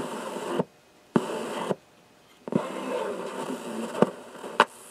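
Single-tube superregenerative FM receiver heard through its speaker while its tuning knob is turned: hissy audio with faint station sound drops out to silence twice and comes back, each return starting with a click, and a sharp click comes near the end. The receiver is quite unstable and tunes fast.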